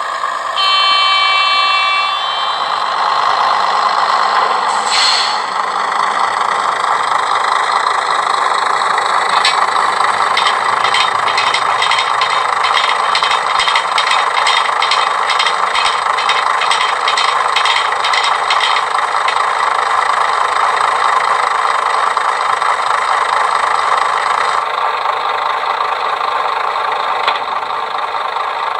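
Hornby TXS sound decoder in a Dapol Class 121 model diesel railcar playing its sounds through a small speaker. The diesel engine runs steadily throughout, with a short horn blast near the start and a brief hiss of air about five seconds in. A run of regular clicks lasts for several seconds midway.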